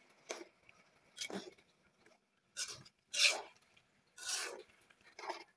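A spatula scraping across a kadai while stirring a Malabar spinach and shrimp stir-fry: six short rasping strokes with quiet gaps between.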